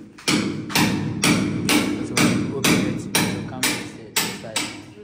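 Hammering at the base of a newly fitted steel security door frame: about ten hard blows in a steady rhythm, roughly two a second, stopping near the end.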